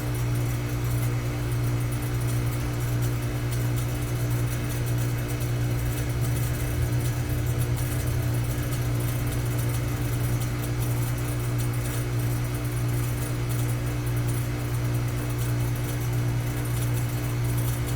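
Air conditioning unit running with a steady low hum from its compressor and fan.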